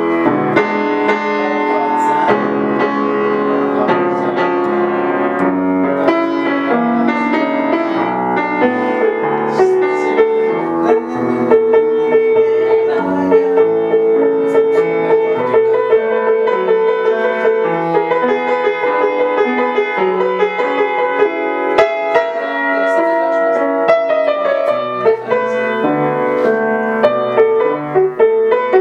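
Upright piano being played: a continuous run of chords and melody notes.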